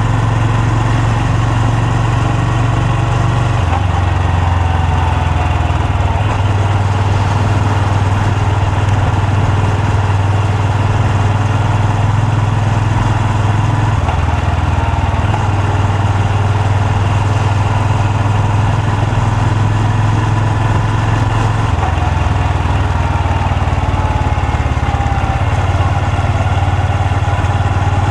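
Honda Super Cub C125's air-cooled single-cylinder engine and exhaust running, its low note holding steady and then stepping to a new pitch several times.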